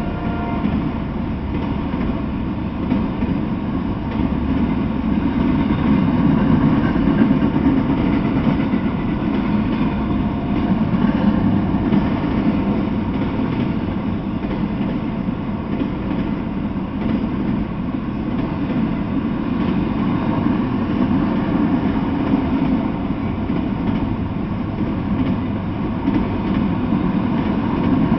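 Freight train of autorack cars rolling past, a steady noise of steel wheels running on the rails.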